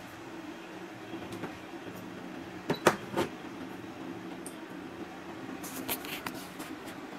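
Steady hum from running repair-bench equipment, with a quick cluster of sharp clicks and taps about three seconds in, the loudest sound, and a few lighter clicks around six seconds.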